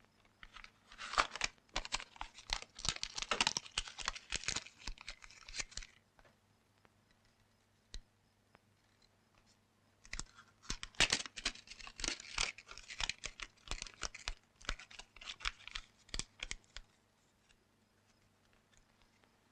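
Paper crinkling and crackling as a small packet is handled, in two runs of a few seconds each with a pause between; a faint steady hum underneath.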